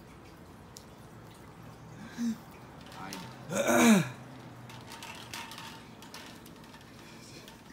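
A person clearing their throat once with a short voiced rasp, preceded by a brief small vocal sound a second or so earlier; otherwise the room is fairly quiet.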